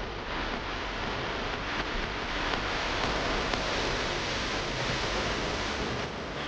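Dust collector running: a steady rush of air and motor noise.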